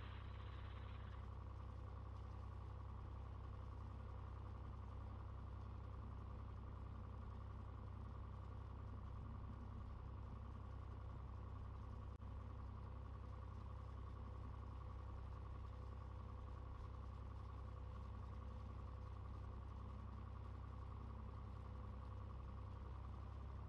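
Single-engine Cessna's piston engine and propeller in flight: a faint, steady low drone with no change in power.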